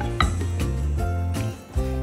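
Background music led by a plucked guitar, with held bass notes.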